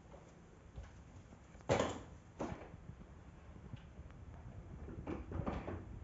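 Bosch BGS21X320 bagless canister vacuum cleaner set down on a laminate floor with a clunk just under two seconds in, followed by a lighter knock and then clatter of its hose and wand being handled. The motor is not running.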